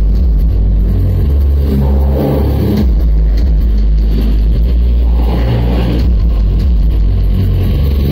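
Loud live electronic music played through a PA system: a heavy, droning sub-bass with swells of noisy texture above it.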